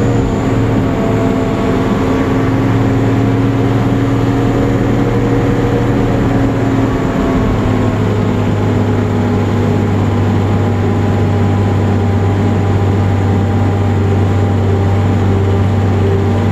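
M18 Hellcat tank destroyer's Continental R-975 radial engine running steadily as the vehicle drives across grass, a loud, even, deep engine note throughout.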